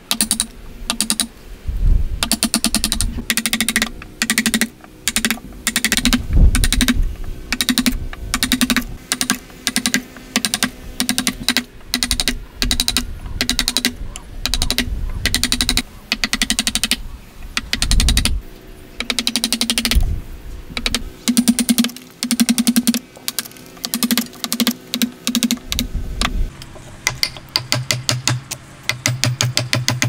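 A wooden mallet strikes the handle of a wood chisel in quick runs of blows with short pauses between them. Each blow drives the chisel into a block of wood to chop out a joint.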